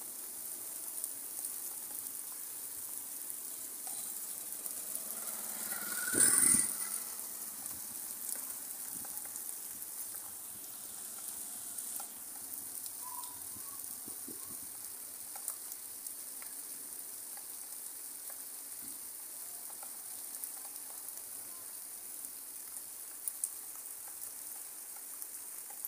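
Steady rain falling, heard as a continuous even hiss, with one brief louder sound about six seconds in.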